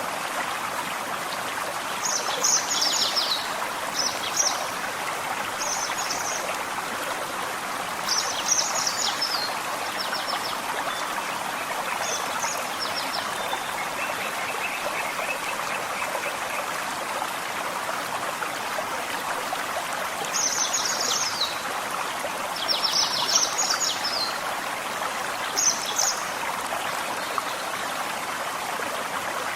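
Gentle forest stream running steadily, with a songbird repeating short, quick, high-pitched phrases every few seconds.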